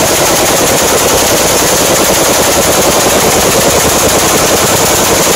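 Belt-fed machine gun firing one long, unbroken burst of fully automatic fire, very loud and close.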